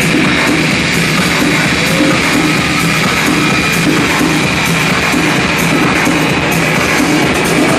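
Loud techno from a live DJ set over a venue sound system, with a dense, steady repeating pattern.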